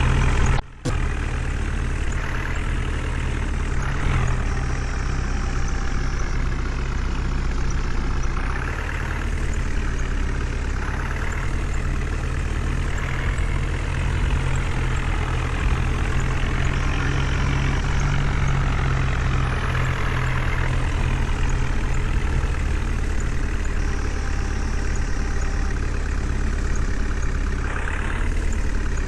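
Heavy diesel engine of a backhoe loader running steadily, swelling in the mid-range every few seconds as it works. The sound cuts out for a moment just under a second in.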